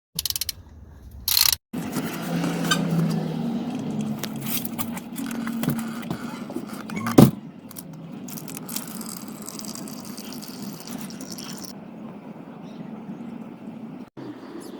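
A 13 mm sump drain plug being undone on a Ford Kuga 1.5 petrol engine: sharp metallic clicks and rattling, with one loud clink about seven seconds in. After the clink there is a steadier noise, which fits engine oil draining from the sump.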